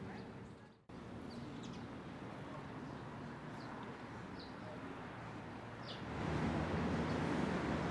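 Outdoor ambience with a steady background hiss and a few short, high bird chirps. The sound cuts out briefly just under a second in. About six seconds in, a louder rushing noise, like wind on the microphone, comes in.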